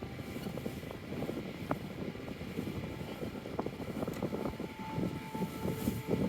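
Crowd hubbub: many people moving and talking indistinctly, with a faint steady tone for about two seconds near the end.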